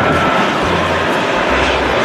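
A steady rushing, engine-like noise over background music with a pulsing low bass beat.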